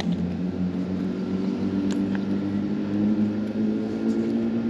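An engine running steadily at a constant pitch, with a faint click about two seconds in.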